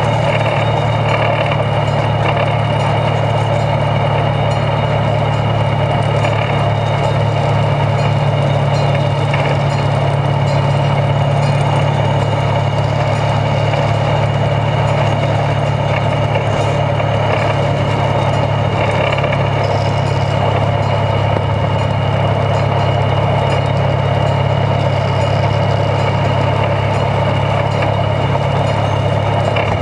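Internal-combustion engine of a two-foot-gauge geared locomotive running steadily under load, heard from beneath the frame close to its driveshaft as the locomotive travels along the track.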